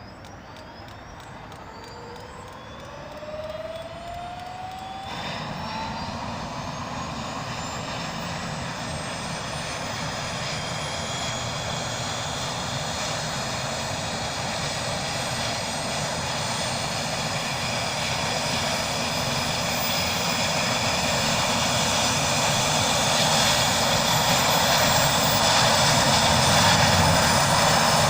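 Helicopter turbine engine starting up: whines rising steadily in pitch and growing louder throughout, with a fuller, denser noise coming in about five seconds in.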